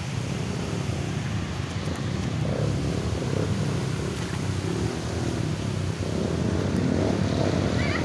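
Dirt bike engines running at low revs as the bikes pick their way through a shallow rocky river, a steady low rumble over the rush of the water. The rumble grows a little louder near the end as one bike comes close.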